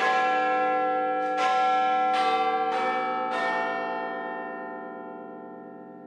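An outro jingle of struck bell-like chimes: five notes over about three and a half seconds, each ringing on, then the whole chord fades away slowly.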